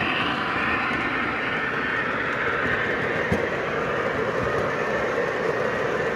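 Metal wheels of O-gauge model coal hopper cars rolling past steadily on three-rail track, with a single click about three seconds in. A higher hum from the passing model locomotives fades away in the first second.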